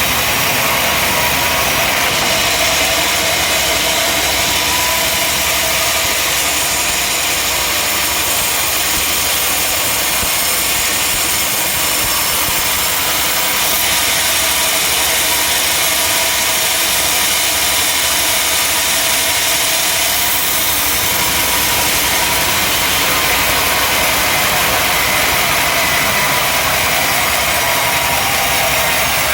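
Sawmill machinery running steadily, a constant engine-like drone with a hum and no breaks.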